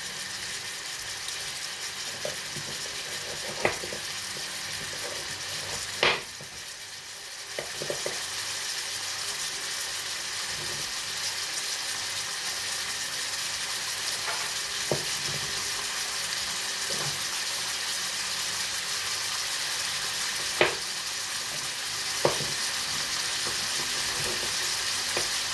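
Beef frying in olive oil in a frying pan: a steady sizzle, with a few sharp knocks of a utensil against the pan.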